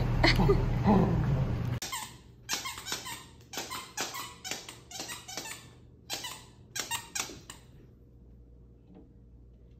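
Rap music with vocals for the first couple of seconds, then a puppy biting a squeaky plush toy. The squeaker goes off over and over in a quick, irregular string of short squeaks and stops near the end.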